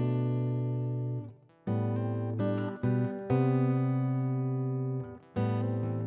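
Acoustic guitar strumming chords that are each left to ring, with short breaks of near silence between some of them.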